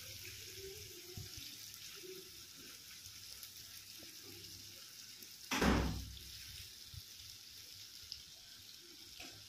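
Pieces of masala-coated pomfret frying gently in coconut oil over a low flame: a faint, steady sizzle. About halfway through comes one short, louder thump.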